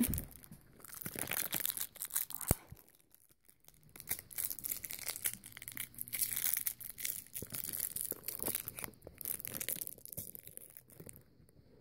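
Intermittent rustling and crinkling, with a single sharp click about two and a half seconds in.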